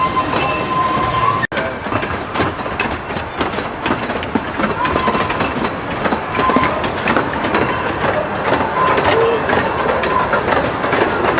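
A train rolling along the track, wheels clacking over the rails with a dense run of clicks, and a thin wheel squeal coming and going. The sound drops out for an instant about a second and a half in.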